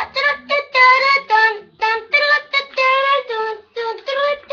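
A high voice singing loudly and unaccompanied: a quick run of about a dozen short notes, some held, with a slight waver in pitch.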